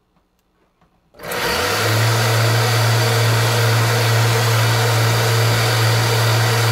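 Belt-driven 3D-printed two-stage regenerative supercharger switched on about a second in, spinning up quickly and then running steadily at 6,000 rpm for a boost test: a loud, even hum with a broad hiss of moving air.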